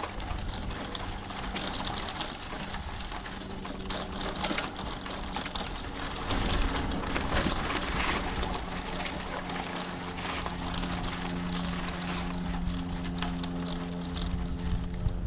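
Bicycle rolling along a dirt and gravel trail: a steady rumble of tyres on the ground with scattered small clicks and rattles, and a low steady hum that comes and goes.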